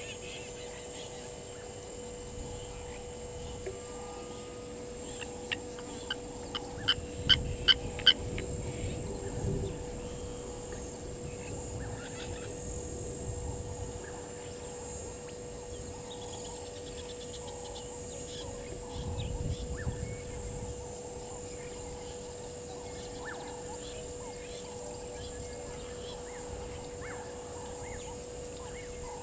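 Blacksmith lapwing giving a run of sharp, metallic 'tink' calls, about eight of them over some three seconds starting about five seconds in, the last few loudest. Under it are a steady high hiss and a steady low hum, with a few faint chirps later.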